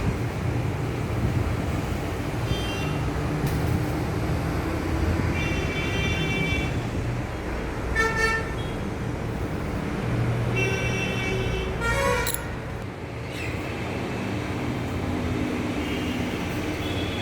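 Steady road-traffic rumble, with vehicle horns tooting several times, the longest blasts held for over a second.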